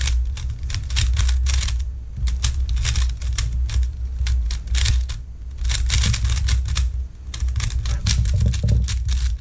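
A GAN i Carry Bluetooth smart 3x3 cube being turned rapidly in a timed speedsolve: fast runs of plastic clicking turns, with brief pauses about two seconds in and again around seven seconds.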